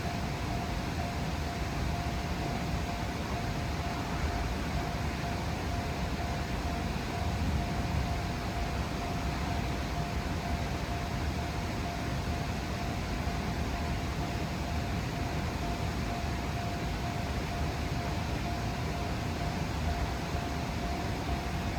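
Japanese railway level crossing's warning alarm ringing on one steady pitch without a break, over a steady rumble and hiss.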